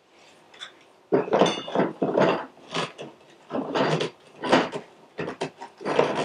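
A metal leg of a Husky portable workbench being screwed by hand into its plastic socket: a series of irregular scraping and grinding strokes from the threads as it is given a good turn, starting about a second in.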